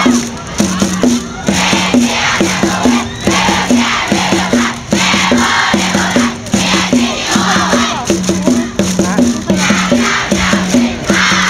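A large cheering section of students chanting and singing a cheer in unison to a steady, regular beat.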